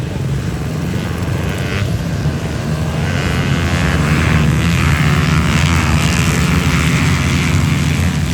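Motorcycle engine running steadily, getting louder about three seconds in.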